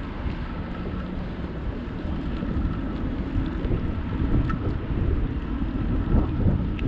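Wind rumbling over the microphone of a camera on a moving bicycle, gusty and growing louder in the second half.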